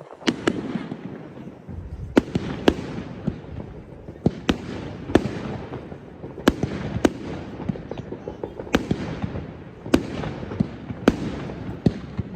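Many fireworks going off at once: a continuous crackle and rumble of distant bursts, broken about once a second by sharp, loud bangs from nearer shells.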